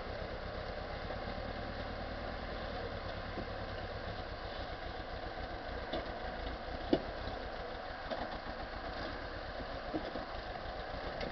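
Rock-crawling buggy's engine running steadily at low idle as it creeps over loose rock slabs, with a few sharp knocks, the loudest about seven seconds in.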